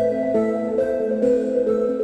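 Calm background music: a melody of sustained notes changing about every half second over a held bass note.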